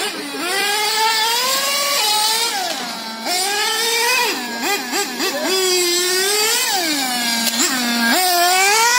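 Radio-controlled model car's small engine revving hard and lifting off again and again as it is driven around the track. The high buzzing pitch climbs for a second or so, drops sharply, and climbs again, with a few quick stabs of throttle midway.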